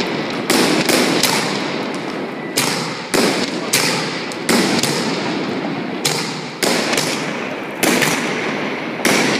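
Fireworks bursting in a quick, uneven series of about ten sharp bangs, with a dense crackling haze between them.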